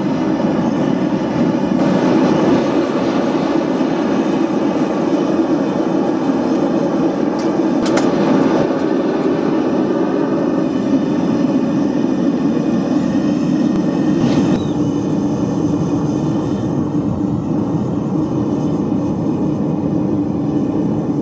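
Gas forge burner running with a steady, loud rushing noise while a knife blank heats in it. One short sharp click about eight seconds in.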